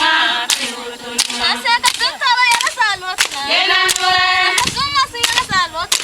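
A group of people singing together, with sharp hand claps keeping time about twice a second.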